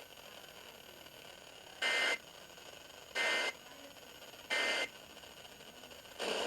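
Emergency Alert System end-of-message data bursts received over the radio: three short, harsh digital buzzes about a second apart, with steady radio hiss between them and a fourth burst starting at the very end.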